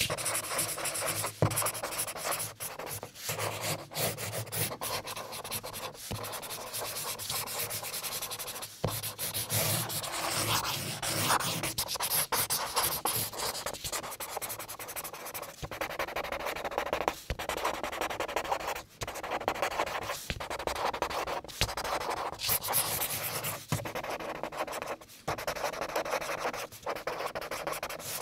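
Plastic spirograph gear rolling round inside a toothed plastic ring while the pen tip rubs and scratches across paper. It makes a continuous scratchy rasp, broken by short pauses now and then.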